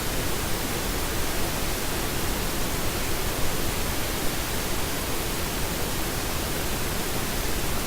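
Steady, even hiss with nothing else standing out: background noise of the recording.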